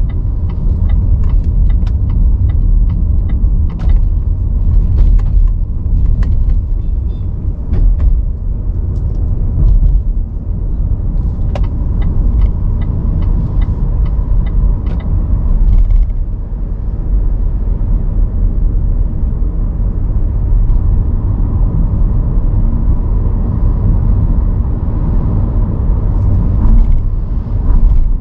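A car driving on city streets: a steady, loud low rumble of road and running noise, with scattered short clicks and ticks that are most frequent in the first half and again near the end.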